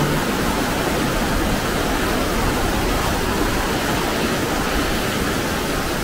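Mountain valley stream rushing steadily, its water running high after days of heavy rain.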